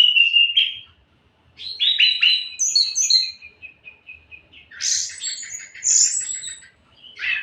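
Orange-headed thrush singing: bursts of varied whistled notes and quick chattering trills, delivered in separate phrases with short pauses between them, busiest in the second half.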